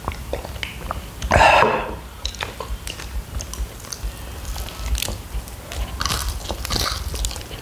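Close-up chewing and biting of kunafa, crisp pastry and melted cheese, with many small wet clicks and crunches; a louder noisy burst about one and a half seconds in.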